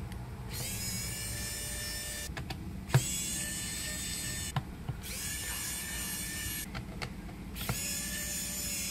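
Electric precision screwdriver whirring in short runs of one to two seconds, three times, with a fourth run starting near the end, as it loosens the Phillips-head screws of a laptop's bottom cover. A sharp click about three seconds in.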